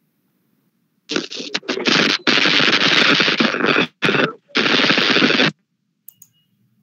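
A loud, choppy burst of crackling, rattling noise starting about a second in and cutting in and out for some four seconds before stopping abruptly, followed by a couple of faint clicks.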